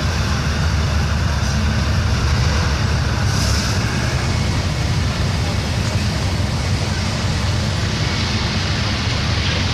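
Half-track armoured vehicle of the German WWII Sd.Kfz. 251 type driving slowly past, its engine running steadily with a deep, even rumble.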